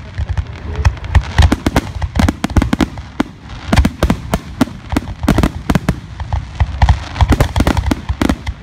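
Grand-finale barrage of aerial firework shells bursting close overhead: a dense, irregular rapid-fire of sharp bangs and deep booms, several per second without a break.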